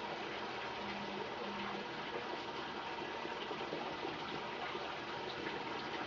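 Tap water running in a steady, continuous stream from a faucet left on for rinsing the razor.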